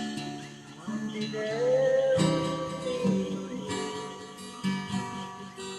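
Instrumental music with acoustic guitar chords and a held melody note that bends in pitch, closing out a gospel song.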